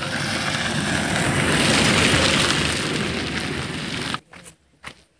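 A car driving past on a dirt road: tyre and engine noise swells to a peak about two seconds in, then fades. It cuts off abruptly, followed by a few faint footsteps on dry ground.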